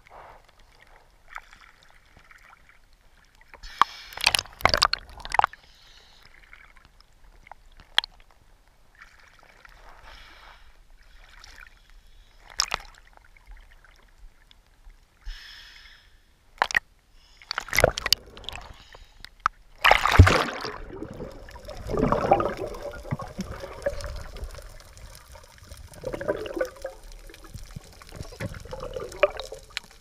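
Seawater sloshing and slapping against a camera held at the surface, dipping in and out of the water: scattered sharp splashes at first, the loudest about two-thirds of the way in, then a steadier stretch of gurgling.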